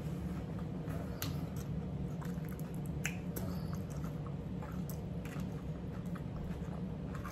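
Eating at a table: chewing with scattered small sharp clicks and taps from crackers and forks on plates, over a steady low hum.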